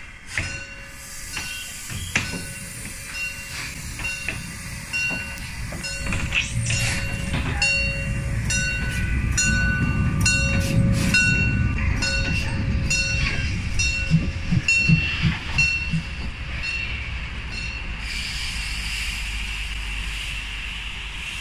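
Steam locomotive rolling slowly past close by: its running gear clanks and ticks, and the wheels give intermittent high squeals. It is loudest in the middle, with a steady steam hiss taking over in the last few seconds.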